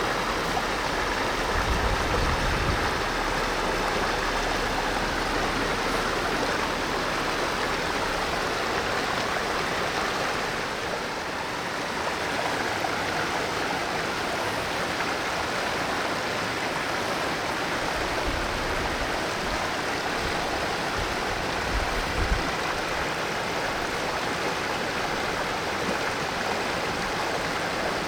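Valley stream flowing, a steady rush of water, with a few brief low rumbles.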